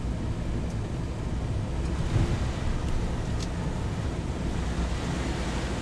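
Steady low rumble and hiss heard inside a car in a rainstorm: the car's engine and road noise, with rain and wind on the body and windshield.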